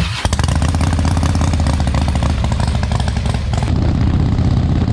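Motorcycle engine running loud and steady while being ridden, a low exhaust drone with a fast, even pulse.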